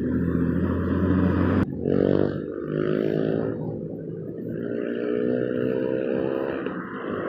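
Road traffic: vehicle engines running steadily, broken by an abrupt cut about a second and a half in, after which an engine rises in pitch as it speeds up and carries on as cars pass.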